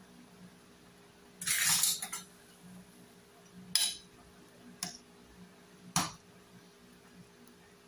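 Stainless steel ladle scraping and clinking against a stainless steel pan while stirring soup: a longer scrape about a second and a half in, then three short, sharp clinks over the next few seconds.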